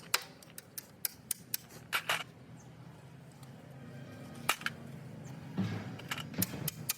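Irregular sharp metallic clicks and clinks, like hand tools tapping and handling hard metal parts, with a cluster of taps near the end, over a steady low hum.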